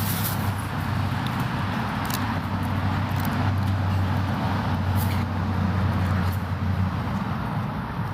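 Motor vehicle engine running with a steady low hum over street noise, the hum dropping away about seven seconds in. A few sharp clicks come through on top.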